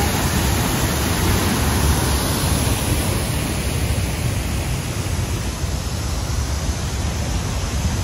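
Waterfall pouring into its plunge pool, a steady loud rush of water that eases slightly about halfway through.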